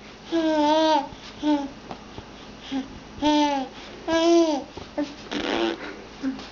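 A cat making a string of short, arching meows, about eight in all, each rising and then falling in pitch, with one rougher, noisier call about two-thirds of the way through.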